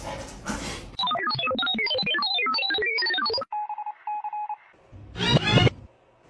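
A fast run of short electronic beeps at changing pitches, like phone keypad tones, for about two and a half seconds, then a steady beeping tone that pulses on and off. Near the end comes one short, loud call.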